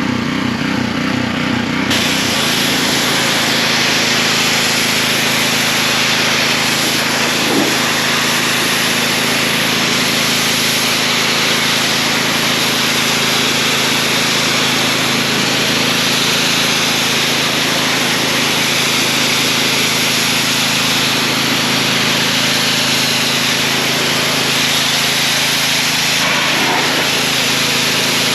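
Gas-engine pressure washer running steadily, with the high-pressure water jet hissing against the wall; the spray opens up about two seconds in and keeps going.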